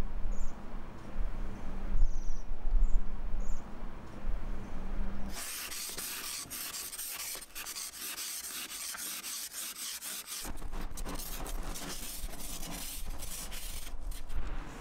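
Plastic ice scraper scraping frost off a car windscreen in quick repeated strokes, beginning about five seconds in.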